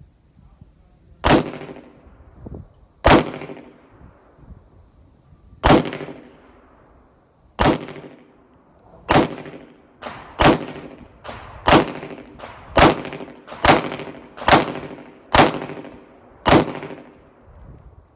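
A Sig Sauer P320 subcompact 9mm pistol fired one shot at a time, about a dozen sharp shots. They come about two seconds apart at first and about one a second in the second half.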